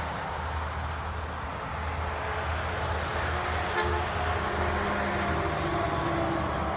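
Highway traffic with heavy trucks passing: a steady low diesel rumble over tyre and road noise, with a short click a little after halfway.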